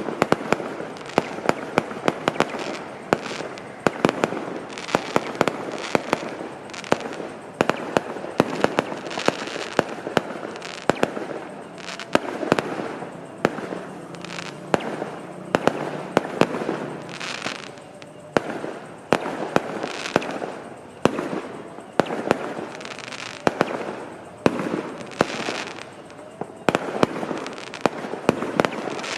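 Fireworks going off: a dense, continuous run of sharp bangs, pops and crackling, several reports every second.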